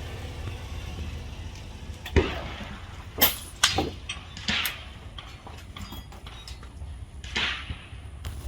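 Several sharp air rifle shot reports at irregular intervals, about five in a few seconds, the first about two seconds in being the loudest. A steady low rumble of wind on the microphone runs underneath.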